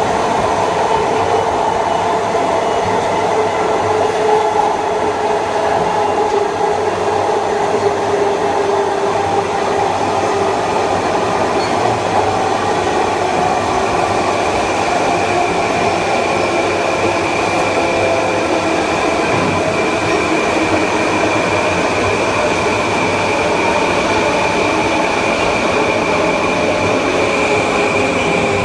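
Kawasaki M9 electric multiple unit running along the line: a steady rush of wheel and track noise with the held whine of its AC traction motors and IGBT-VVVF inverter. A steady high-pitched tone comes in about halfway through and holds.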